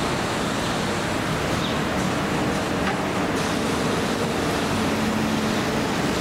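Steady rushing ambient noise at an elevated BTS Skytrain station, with a faint low hum coming up in the second half.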